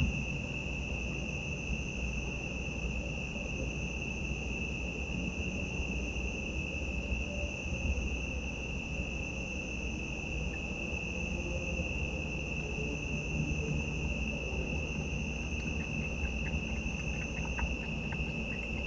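A night chorus of crickets: a steady, unbroken high trilling at two pitches over a low steady rumble, with a few faint ticks near the end.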